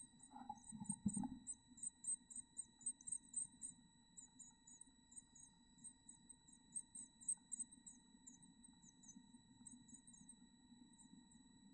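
Black-capped chickadee nestlings begging: faint, very high-pitched chips, several a second, in runs that pause and restart. A steady thin electronic whine sits under them, and a few soft knocks come in the first second or so as the adult moves in the nest box.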